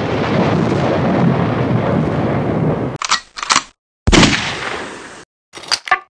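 Edited intro sound effects: about three seconds of loud TV-static hiss, then a few short choppy bursts. About four seconds in comes a sudden hit that dies away over about a second, followed by brief sharp stabs near the end.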